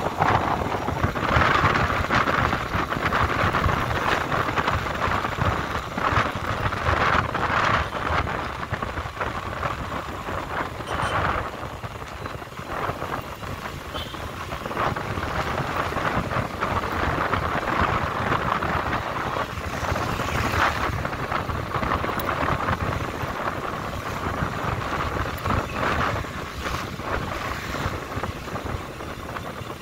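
Rushing wind on the microphone mixed with road and engine noise from a moving motorbike: a steady noisy hiss that swells and dips, easing for a few seconds in the middle.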